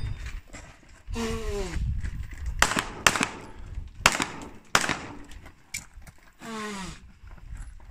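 Pistol shots during a practical shooting course of fire: four sharp reports, the first two close together and the next two spaced further apart.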